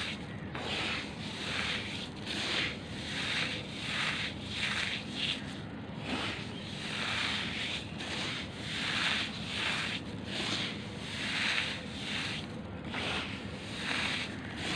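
A hand squeezing and rubbing into a pile of damp crushed charcoal granules, giving a gritty, crunchy crumbling in uneven swells about once or twice a second.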